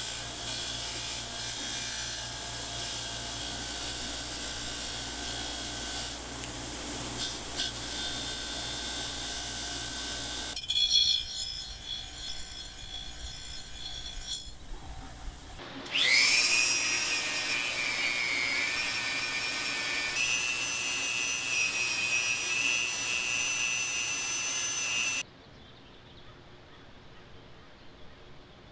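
Power tools working metal: about ten seconds of a steady motor with a grinding hiss, a rougher rasping passage, then a motor spinning up with a rising whine about halfway through and running at a steady high pitch until it cuts off abruptly near the end.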